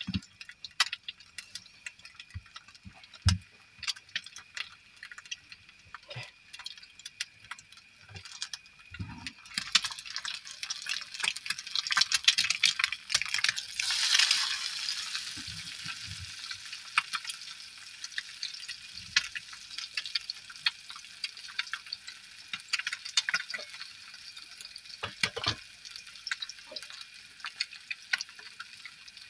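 An egg frying in oil in a small nonstick pan on a portable gas stove, crackling and sizzling. The sizzle grows much louder about ten seconds in, then settles to a steady sizzle, with a few dull knocks now and then.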